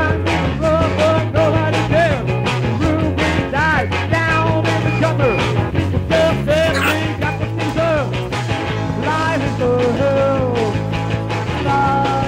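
Rock music with a steady beat, bass line and a bending lead melody.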